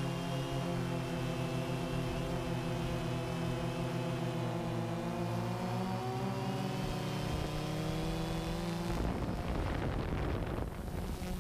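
Multirotor drone's electric motors and propellers humming steadily, heard through the camera on the drone, the pitch shifting slightly as the throttle changes. About nine seconds in the hum stops and wind buffeting the microphone takes over.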